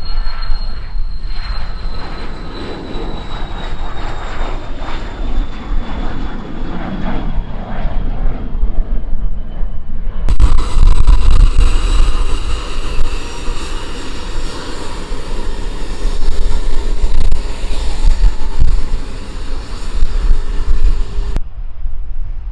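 Aircraft engines at an airfield: a high whine falls slowly in pitch over a steady rumble. About ten seconds in it changes abruptly to another aircraft sound with several steady high tones, which stops suddenly near the end.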